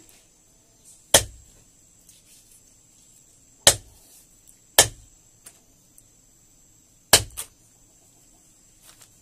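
Large curved knife chopping chicken pieces on a wooden log chopping block: four sharp chops, the last followed closely by a lighter second hit.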